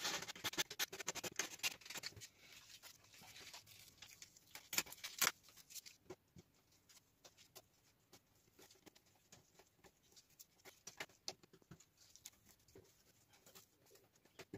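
Faint hand sanding: a small piece of sandpaper rubbed in short scratching strokes along the edges of thin scroll-sawn plywood fretwork, taking off the fuzz the saw left on the back. The scratching is busiest at the start and again around five seconds in, then thins out to scattered light scrapes.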